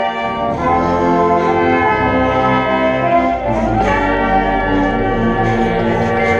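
Marching band brass playing loud held chords, moving to a new chord about half a second in and again near four seconds in.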